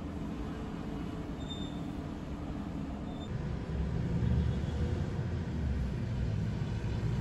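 Low, steady rumble of city traffic, growing louder about halfway through.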